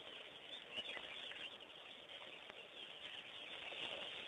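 Faint outdoor bush ambience with birds chirping.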